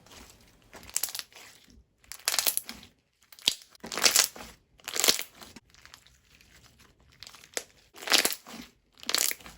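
Foam-bead slime being squeezed and pressed by hand, the beads crunching and crackling in repeated short bursts about once a second, with a few sharp clicks.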